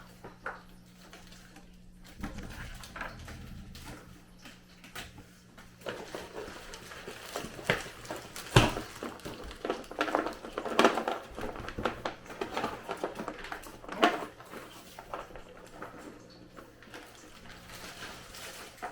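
Irregular clicks, taps and rustles of candy and wrappers being handled and set into containers, busier from about six seconds in, over a low steady hum.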